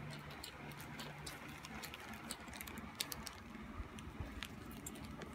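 Light, scattered clicks and rustling of small plastic toy parts and plastic wrappers being handled and fitted together.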